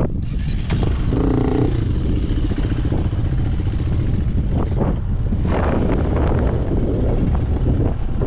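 A motor vehicle running with a steady low rumble; a short pitched sound comes about a second in.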